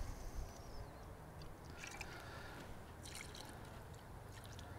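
Faint pour of whiskey from a glass measuring cup into a foil pan of beans and sauce, liquid trickling and splashing softly over a low steady rumble.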